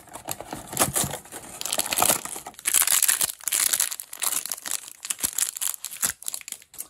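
Hands tearing open a cardboard door of a toy advent calendar, then crinkling and tearing a plastic blind-bag wrapper off a small figure: dense crackling and ripping, loudest a little before the middle.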